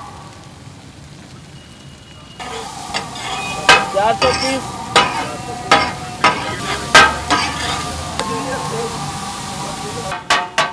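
Fish and onions frying on a large flat griddle (tawa), a steady sizzle broken by irregular sharp clanks and scrapes of metal spatulas and tongs on the griddle. Near the end, rapid rhythmic clanging starts, about four strikes a second: the blades chopping the fish on the griddle, the sound that gives katakat its name.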